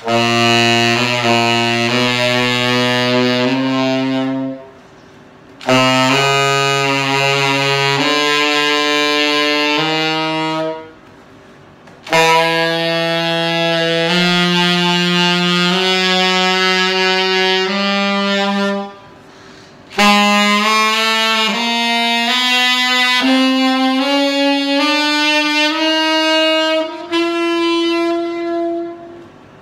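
Yamaha YTS-61 tenor saxophone with a Theo Wanne Durga 7* mouthpiece and Yamaha Custom V1 neck, playing slow, long-held notes. The notes come in four phrases with short pauses between them.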